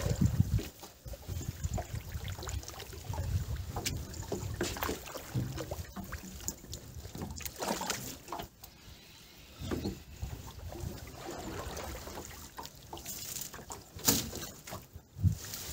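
A small boat being pushed along with a long wooden pole: water splashing and sloshing as the pole goes in and out of the river, with a few sharp knocks, and a low wind rumble on the microphone at the start.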